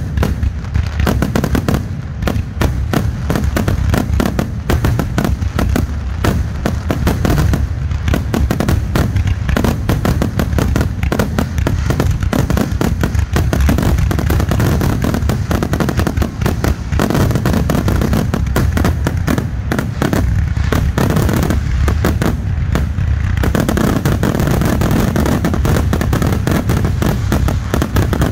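A fireworks finale: aerial shells bursting in a rapid, unbroken barrage of bangs, many a second, packing into a near-continuous rumble in the last few seconds.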